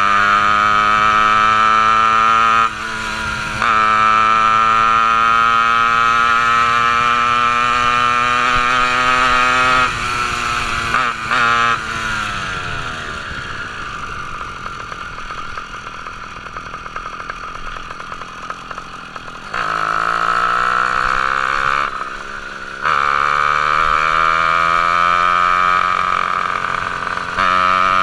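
Ported half-breed two-stroke motorized-bike engine, no reed valve, buzzing hard under throttle, its pitch climbing slowly as the bike gathers speed. The throttle is chopped several times. Through the middle the engine runs quieter and lower off the throttle, after two quick blips.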